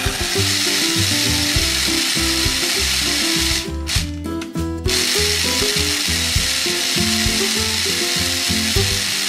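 Toy blender whirring while its button is held, stopping for about a second midway and then starting again, over background music.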